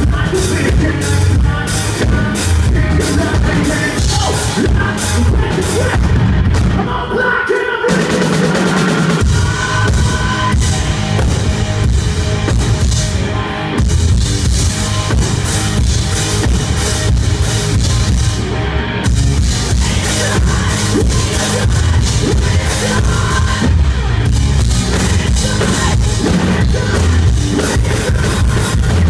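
A rock band playing live: distorted guitars over a driving drum kit. The drums and low end drop out briefly about seven seconds in, then the full band comes back in.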